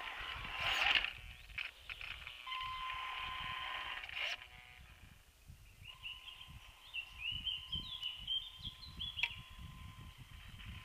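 Electric motor and gearbox of a Tamiya CC-01 radio-controlled crawler whining steadily as it drives. A loud burst of scraping noise comes about a second in and a sharp click near four seconds. The whine drops out briefly, then returns, wavering in pitch, for the rest.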